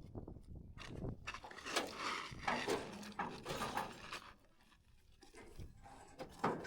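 Irregular scraping, rustling and clicking of scrap metal and wire being handled, busiest in the first half and then quieter, with a sharp knock near the end.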